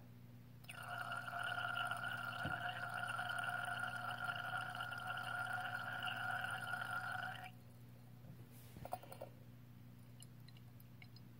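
Silver titrant running from an open burette into a conical flask of chloride solution, about 5 mL added: a steady pitched ringing that starts about a second in and stops suddenly some seven seconds later. A few light clicks follow.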